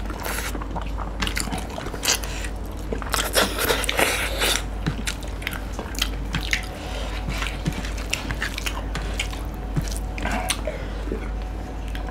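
Two people eating rice and fish curry with their hands: wet chewing, lip smacking and mixing of food, many short irregular clicks.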